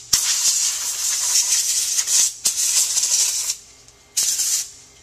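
Can of compressed air spraying through its straw nozzle to blow dust off a laptop's metal access panel: a long hiss of about three and a half seconds with a brief break partway, then one short burst near the end.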